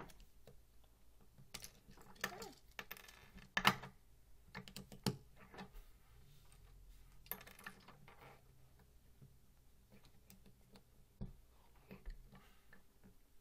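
Small plastic Lego bricks clicking and clattering on a wooden tabletop as pieces are handled and snapped together, in irregular taps with the loudest clack about three and a half seconds in.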